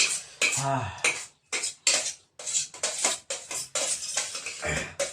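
Plates and cutlery clattering in quick, irregular knocks as chopped green chillies are eaten, with a brief voiced sound about half a second in.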